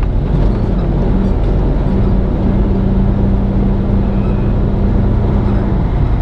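Semi truck's diesel engine running under way, a steady low drone heard from inside the cab, with a held hum from about two seconds in that stops just before the end.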